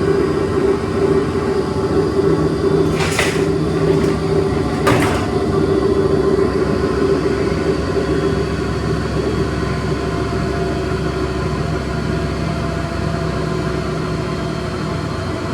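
Large commercial coin-laundry washing machine running near the end of its cycle, a loud steady motor hum with two short hissing noises about three and five seconds in.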